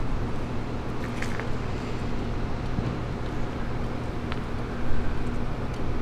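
Steady low mechanical drone holding a constant pitch, with a few faint clicks.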